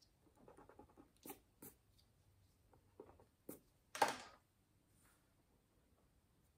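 Faint scratching of colored pencils on paper and a few light clicks of pencils being handled and laid on the table, with one louder short knock-and-rustle about four seconds in as a pencil is put down.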